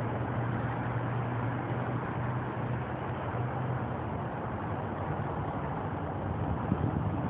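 Steady vehicle noise: a low engine hum over a constant wash of road noise.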